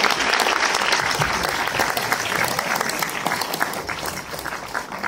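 Audience applauding. The applause is loud at first and thins out to scattered claps near the end.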